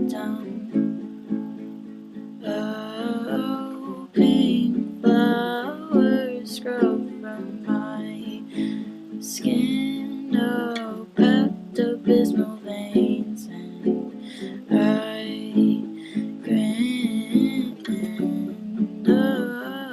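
Background song: plucked acoustic strings accompanying a singing voice.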